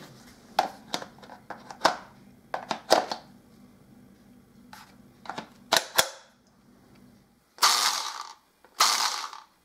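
Clicks and knocks of plastic as the battery pack of a cheap cordless one-handed mini chainsaw is handled and clicked into place. Then the saw's electric motor is triggered in two short bursts of just under a second each, spinning the bare drive sprocket with no bar or chain fitted. It runs only fully on or off and stops quickly on release.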